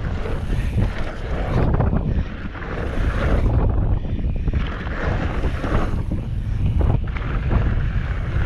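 Wind buffeting a helmet-mounted camera's microphone on a fast mountain-bike descent, a heavy steady rumble, with the tyres rolling over dirt and the bike rattling over bumps.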